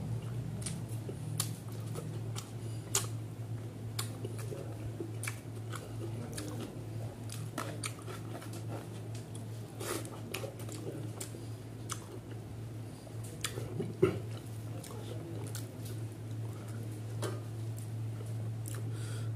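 Close-up mukbang eating sounds: a person chewing a mouthful of rice and catfish curry eaten by hand, with frequent wet lip-smacks and mouth clicks. A steady low hum runs underneath, and a single louder knock comes about two-thirds of the way through.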